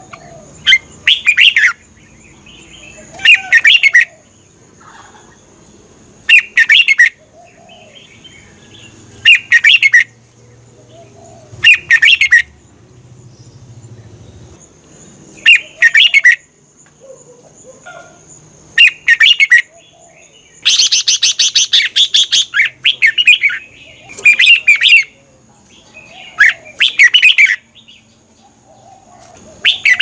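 Red-whiskered bulbul singing: loud, short, liquid song phrases repeated about every two to three seconds, with a longer rapid run of notes about two-thirds of the way through.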